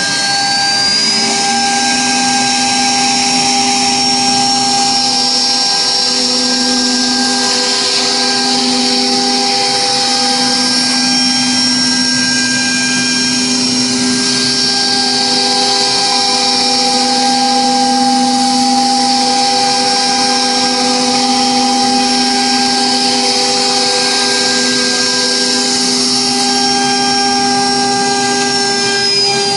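Dual-spindle CNC router's spindles running with a steady high whine while engraving MDF, with changing cutting noise over it. The whine finishes rising in the first two seconds as the spindles come up to speed, and near the end it starts to fall as they spin down.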